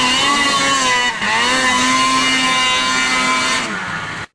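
Snowmobile engine running at high revs, easing off briefly about a second in, then held high again before dropping near the end and cutting off suddenly.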